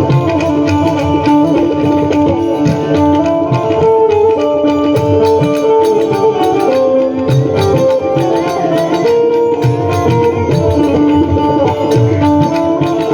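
Loud Indian folk-style music with a steady hand-drum rhythm under a held melodic line, played over a DJ sound system.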